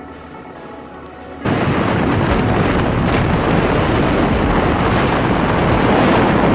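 Loud, steady rumbling rush of wind on the microphone as the boat runs at speed across open water, cutting in suddenly about a second and a half in, with faint background music before it.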